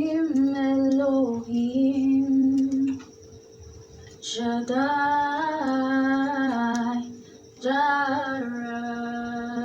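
A woman singing a slow worship song unaccompanied in three long, held phrases with short breaks between them.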